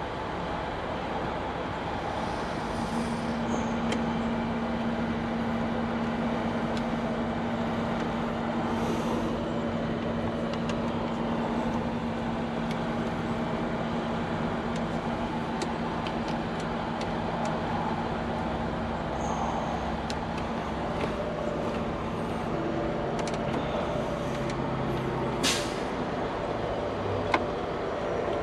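Semi-truck's diesel engine running steadily, heard from inside the cab, with a low droning hum throughout. A brief sharp sound cuts in about 25 seconds in.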